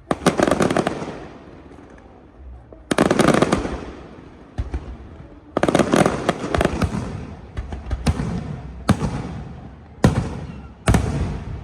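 Fireworks going off in a series of about seven bursts, each a sharp bang followed by a crackling that fades over about a second.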